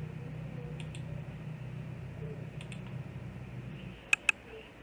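Computer mouse clicking: a couple of faint clicks, then a sharp, loud double click near the end, over a low steady hum that stops just before it.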